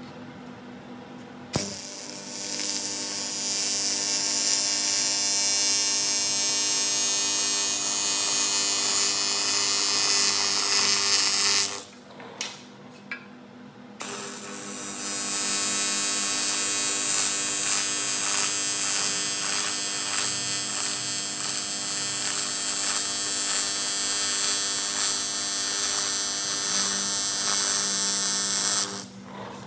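AC TIG welding arc on aluminium exhaust tubing, a loud steady buzz. It strikes with a sharp click about a second and a half in, cuts out for a couple of seconds just before the middle, then strikes again and buzzes on until shortly before the end.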